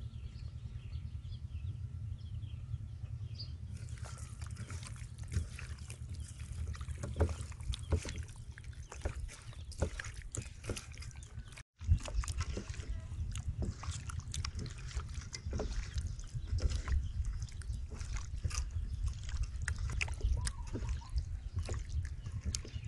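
Hands squishing and kneading raw chicken wings in a wet soy-and-chili-sauce marinade in a metal bowl: irregular sticky squelches and slaps. They start about four seconds in, over a steady low rumble.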